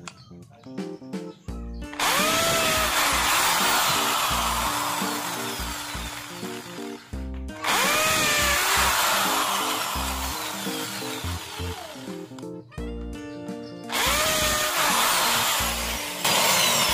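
Corded electric drill with a 5 mm bit boring holes through a wool felt polishing wheel into the wooden board beneath: three runs of several seconds each, each starting with a rising whine as the motor spins up. Background music plays underneath.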